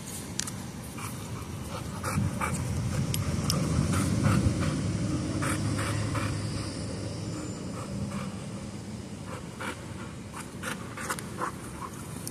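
A dog panting with its mouth open, louder from about two seconds in and easing off in the second half.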